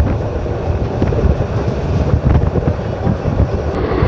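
Express passenger train running at speed: a steady rumble of the coaches on the track, with wind buffeting the microphone and a few faint clicks.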